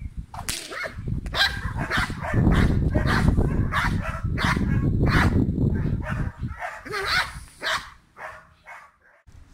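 Belgian Malinois barking repeatedly at the helper in a bite suit, about two barks a second, with the barks thinning out near the end: guard barking in protection training.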